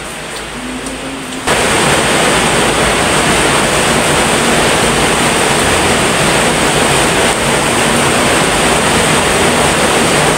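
A loud, steady rushing hiss like white noise starts abruptly about a second and a half in and covers everything else.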